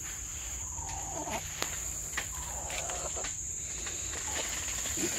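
Steady high-pitched insect chorus of crickets, with a couple of faint falling animal calls and a few soft clicks.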